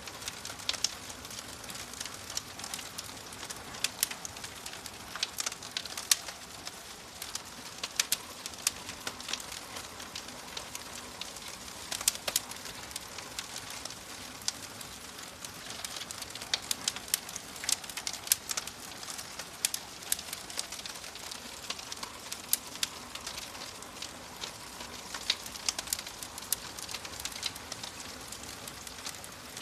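Wood fire crackling: a steady soft hiss with frequent sharp pops and snaps at irregular intervals.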